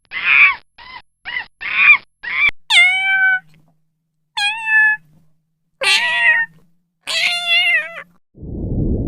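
Domestic cat meowing: six short meows in quick succession, then four longer, clearer meows, each falling then levelling in pitch. Near the end a steady low rushing noise begins.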